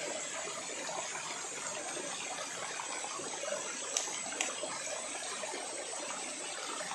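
Mountain stream rushing over rocks in a steady wash, with two faint clicks about four seconds in.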